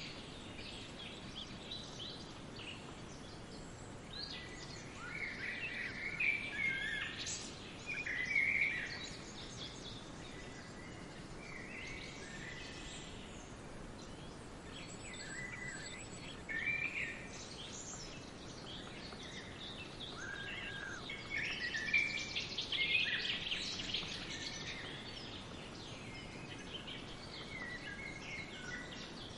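Songbirds chirping in short, scattered bursts over a steady background hiss, busier in two stretches about a quarter and three-quarters of the way through.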